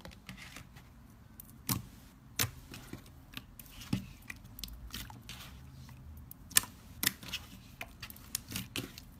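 Fingers kneading and pressing into slime, making irregular sticky clicks and small pops, the loudest about six and a half seconds in.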